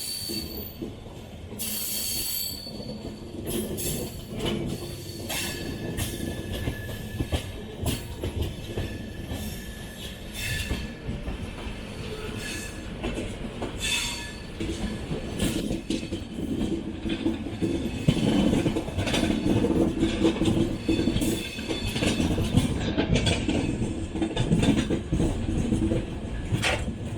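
Passenger coaches of an express train running slowly over the junction points, wheels clicking and clacking over rail joints and crossings, with short high wheel squeals. The train is crossing over from the station loop onto the Tirunelveli line. The running noise grows louder over the second half.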